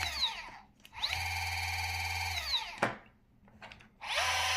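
Newer Bafang M560 mid-drive e-bike motor spinning with no load in short throttle bursts: a steady whine of gear tones over a low hum. It winds down with falling pitch at the start, runs for about a second and a half, spins down again with a click as it stops, and starts up once more near the end.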